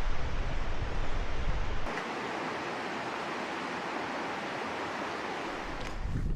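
Steady rushing of a mountain river, an even hiss of water. About two seconds in the deep rumble drops out and a brighter hiss remains; near the end a low rumble and a few clicks begin.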